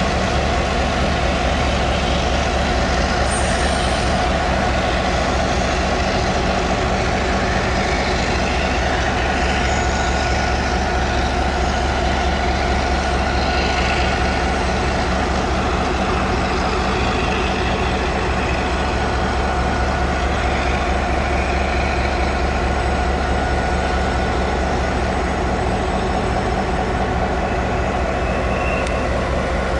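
Diesel-electric locomotive R21 of Taiwan Railways idling steadily, a constant low engine drone with even humming tones.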